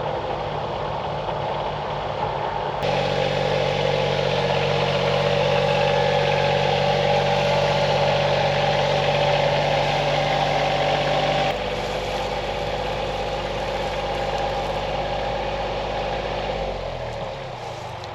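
Kioti CK2610 compact tractor's three-cylinder diesel engine running steadily under way, with sudden jumps in level a few seconds in and again past the middle. Its note drops near the end as the engine slows down.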